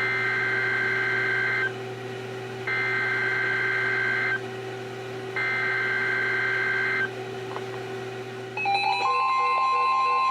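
Emergency Alert System SAME header sent three times over NOAA Weather Radio: three bursts of buzzing two-tone digital data, each under two seconds with about a second's gap between. Near the end, the 1050 Hz warning alarm tone starts together with weather radio receivers' pulsing alert beeps, over a steady low hum.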